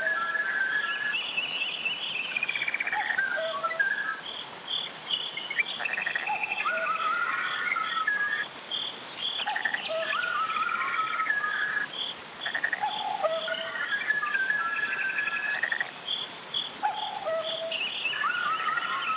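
Birds calling in short phrases that return every few seconds, over a steady pulsing high chirp and a faint even hiss.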